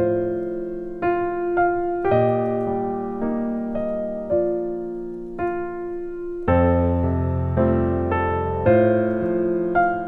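Background piano music: a slow, gentle run of notes and chords, each fading before the next.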